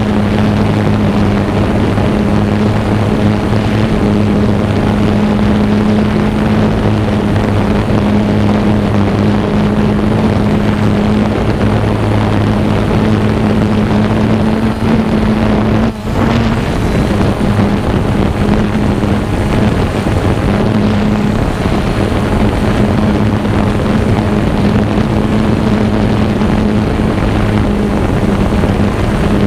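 Xiro Explorer quadcopter's electric motors and propellers humming steadily, heard close from the GoPro mounted on the drone, over a broad rush of wind noise. The hum dips briefly and settles slightly lower about sixteen seconds in.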